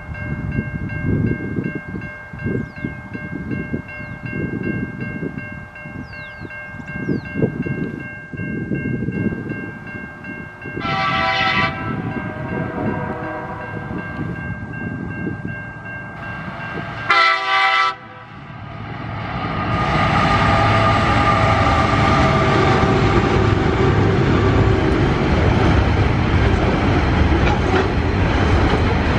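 Tasrail diesel-electric locomotives TR03 and TR08 approaching under power, their engines throbbing with a steady high whine, and the horn sounded in two short blasts partway through. From about two-thirds in, the loaded container wagons roll past close by with a steady loud rush of wheels on rail.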